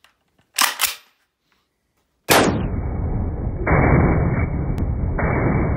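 CZ 805 BREN semi-automatic rifle in .223 Remington firing: two quick shots about a quarter second apart, then a louder shot a little after two seconds in. That last shot runs on into a loud, dull, steady rushing sound with no high end.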